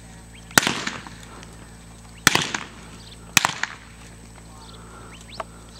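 Three revolver shots with blank cartridges, the first alone and the last two about a second apart, each crack trailing off briefly.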